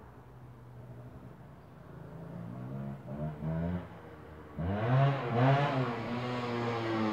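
125 cc motorcycle engine running at low revs, given two short blips of throttle about three seconds in, then a hard acceleration from about four and a half seconds, with revs rising and falling through the gears. The engine is louder afterwards as the bike comes toward the microphone.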